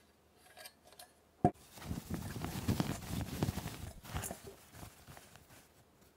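Kitchen handling noise: one sharp click, then about three seconds of quick, irregular tapping and rustling that fades out.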